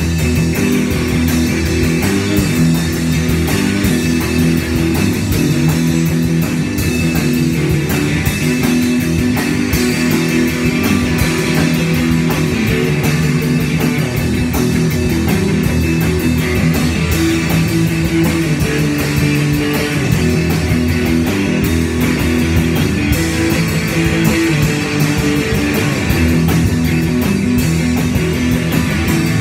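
Live rock band jamming loud: electric guitars over a drum kit, with steady, dense drumming and held low guitar notes.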